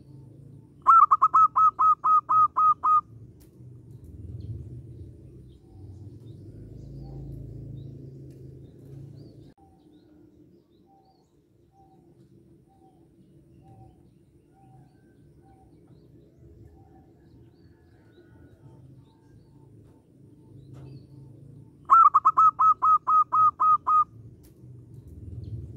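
Zebra dove (perkutut) cooing song: two phrases of about ten quick, evenly spaced notes each, one about a second in and the other near the end.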